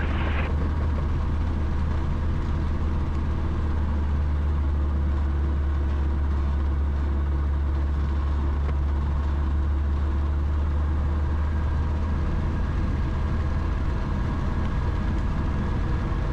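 Rotax 912ULS flat-four engine of a Zenith STOL CH 701 light aircraft running steadily at low power while the plane taxis, its propeller turning: an even, deep drone.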